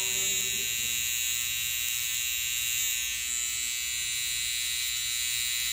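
Babyliss Pro Gold FX hair trimmer running with a steady, even high buzz as its T-blade trims the hairline around the ear.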